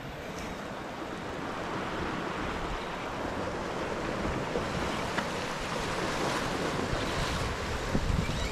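Sea surf washing over the rocks: a steady rush of waves that slowly grows louder, with wind rumbling on the microphone near the end.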